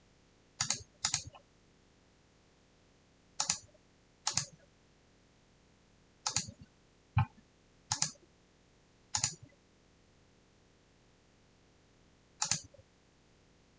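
Clicks at a computer, a mouse and keys being pressed while working through a software dialog: about nine separate short clicks at irregular intervals, each a quick press-and-release.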